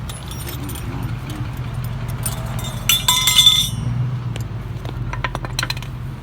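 Steady low vehicle rumble, with a brief jingle of keys or small metal pieces clinking about three seconds in and a few light clicks after.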